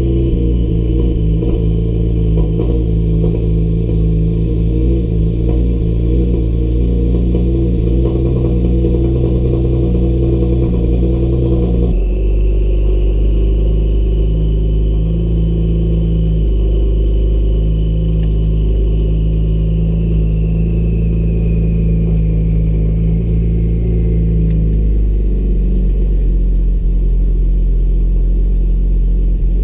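Porsche car engine running steadily, checked for misfires, its low drone changing abruptly about twelve seconds in and again near the end, with a faint high whine rising and falling in the middle.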